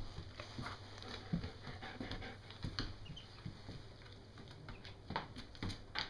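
Irregular soft taps and scuffs of a duckling's webbed feet and a dog's paws moving on a wooden floor, with a few louder knocks about a second in and near the end.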